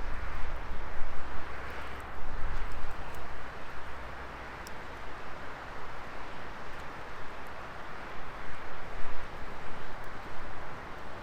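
Wood fire burning steadily with a rushing, rising-and-falling hiss of flames and a few sharp crackles from the burning wood.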